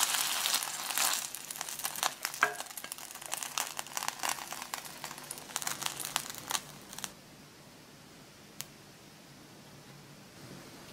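Small balls of ground meat frying in oil in an electric skillet: a crackling sizzle full of small pops, thinning out and stopping abruptly about seven seconds in. A single click follows a little later.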